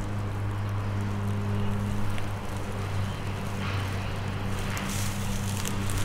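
Lawn mower engine running steadily, a constant low hum; a higher airy hiss rises in the second half.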